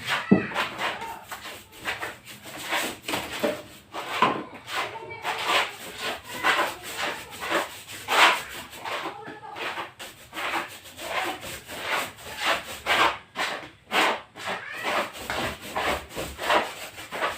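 Hand-worked strokes rubbing over a plywood wall, an uneven scrubbing rhythm of about two strokes a second.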